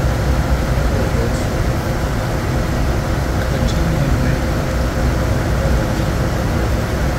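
Steady low rumble and rush of air inside the cockpit of a Bombardier Challenger 350 business jet in flight on approach, with a faint steady hum.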